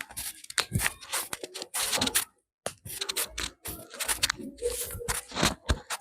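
Hands working over a head and hair in a barber's head massage, giving irregular runs of quick clicks, pats and scratchy rubbing with brief pauses between them.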